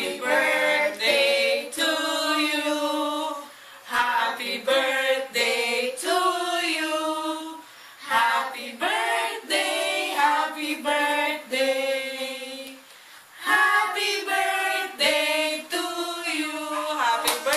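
A small group of voices, mostly women and girls, singing together without accompaniment, in phrases broken by three short pauses.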